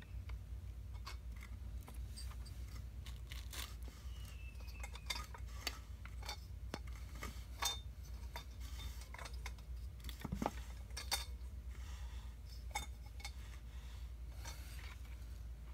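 Scattered light metallic clicks and small scrapes of a borescope probe being worked through the spark plug hole into a small engine's cylinder, with a brief falling squeak about four seconds in, over a steady low hum.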